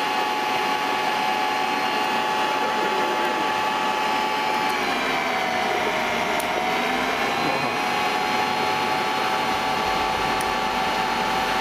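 Electric motor-generator set running with a steady high whine; about five seconds in its pitch sags for roughly two seconds, then recovers.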